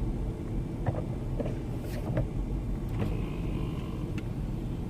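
Low steady rumble of a vehicle's engine and cabin, heard from inside as it slows to a stop. A few light clicks come through, and a faint thin whine about three seconds in.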